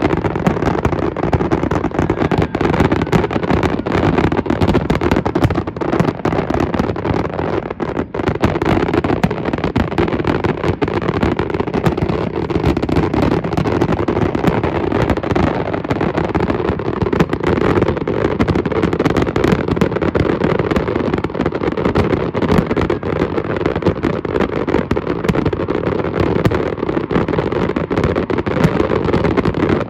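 Fireworks finale: a continuous barrage of aerial shells bursting, dense overlapping bangs with no break between them.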